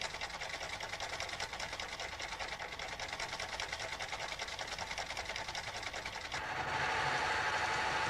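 Sewing machine running steadily, its needle mechanism clattering in a fast, even rhythm as a cam drives a fancy stitch. About six seconds in the sound turns louder and brighter.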